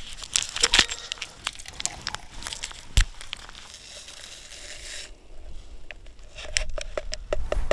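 Drink-mix stick packet crinkling and tearing open, with a single sharp tap about three seconds in, then a run of quick small ticks as the powder goes into a water bottle.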